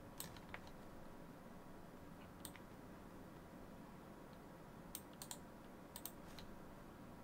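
A few faint, scattered keystrokes on a computer keyboard over quiet room hiss. They come in small clusters: just after the start, about two and a half seconds in, and again around five to six seconds in.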